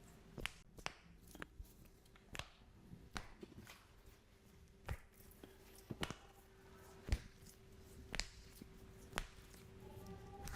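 Scattered soft clicks and taps from hands working on a patient during chiropractic treatment, irregular, about one to two a second, over a faint steady hum.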